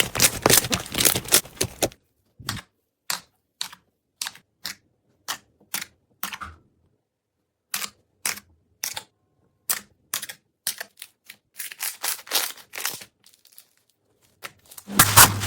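Slime being squeezed and poked by hand, giving sharp clicking pops. The first two seconds are a dense crackle, then single pops come about two a second with a short silent pause in the middle. A louder, denser squelching starts just before the end.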